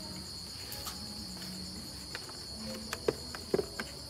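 Plastic air filter box cover being fitted back onto the engine: a run of short clicks and knocks in the second half. A steady high trill of crickets runs underneath.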